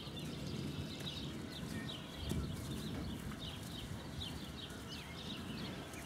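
Bay paint mare walking in deep arena sand, her hoofbeats dull and muffled, with one louder thump about two seconds in. Many small birds chirp rapidly and constantly in the background.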